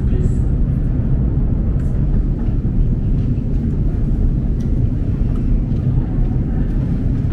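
Steady low rumble of a long metro escalator running, with its machinery and moving steps echoing in the tunnel.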